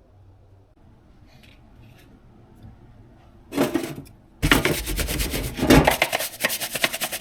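A brush scrubbing a degreaser-soaked plastic motorcycle airbox part in rapid back-and-forth strokes. It starts with a short burst about three and a half seconds in, then runs steadily from about four and a half seconds.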